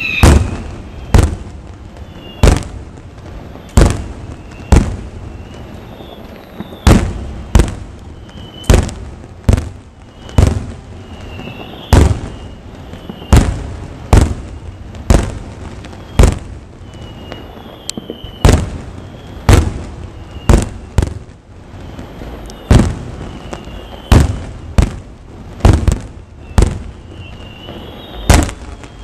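Aerial firework shells bursting in a steady run of sharp, loud bangs, about one a second, each with a short echoing tail. The bangs come closer together near the end.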